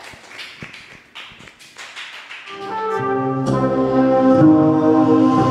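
Scattered hand clapping thins out over the first couple of seconds. Then background music fades in and grows loud, with held chords.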